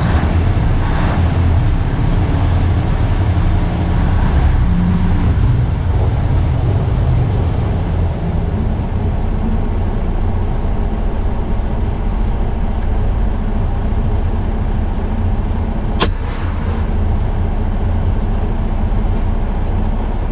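Semi-truck's diesel engine running steadily, heard from inside the cab as a low rumble while the truck moves slowly, with one sharp click about sixteen seconds in.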